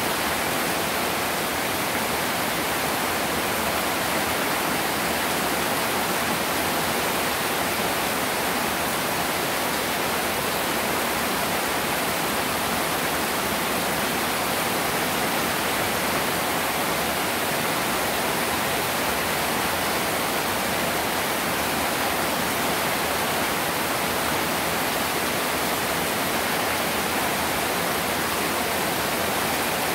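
Heavy tropical rain pouring steadily onto standing floodwater: a dense, unbroken hiss of drops.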